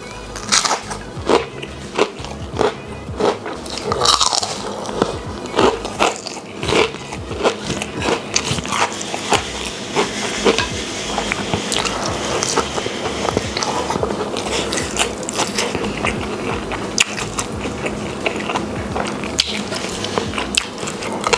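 A person chewing a mouthful of food with crisp crunches, sharp bites about twice a second at first, then softer, faster chewing after the first several seconds.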